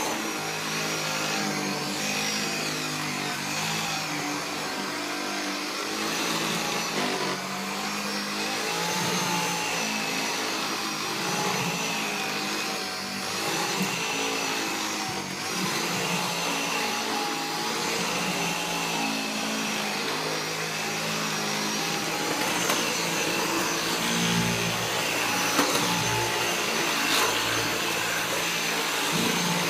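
Upright stick vacuum cleaner running steadily with a high whine as its brush-roll head is pushed over a wooden floor and carpet.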